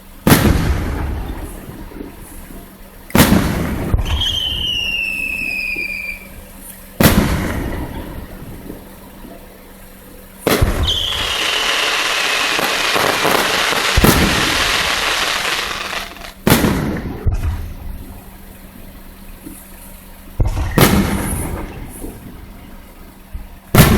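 Fireworks display: about eight loud shell bursts a few seconds apart, each rolling off after the bang. A falling whistle follows the second burst, and a long crackling shower of sparks fills the middle stretch, with another whistle at its start.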